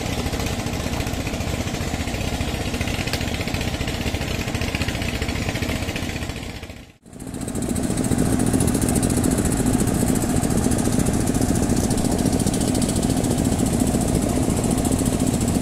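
An engine running steadily with a fast, even pulse. It drops out briefly about seven seconds in and comes back a little louder.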